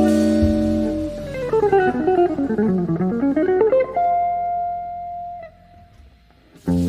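Solo guitar music: a chord rings, then a quick run of plucked notes falls and climbs back up, a single note is held, and after a short pause a new chord comes in near the end.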